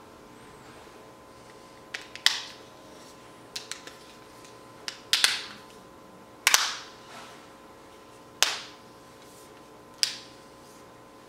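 Sharp plastic clicks as the RICOH THETA V camera's housing is pressed and snapped back together by hand, some in quick pairs, every second or two.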